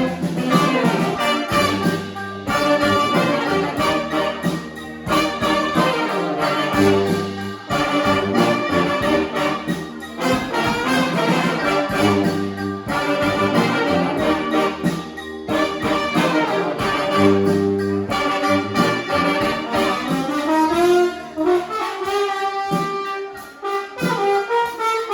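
Brass band playing a funky tune live: trumpets and trombones over a low bass line, the riff repeating about every two and a half seconds. Near the end the bass drops out and the horns play sliding, swooping lines.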